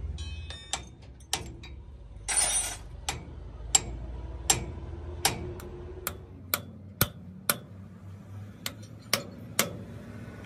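Sharp metallic taps, irregularly spaced about half a second to a second apart: a hammer striking a steel punch against a truck wheel hub. A short rushing noise comes about two seconds in.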